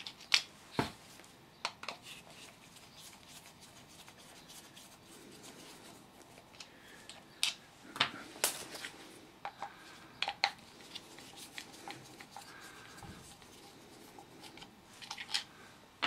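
Scattered light clicks and scrapes of a Torx screwdriver working screws out of a plastic washing machine drain pump housing, with small taps as the loose screws and tools are put down on a wooden bench.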